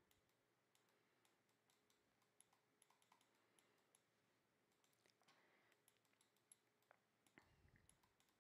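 Near silence with faint scattered clicks.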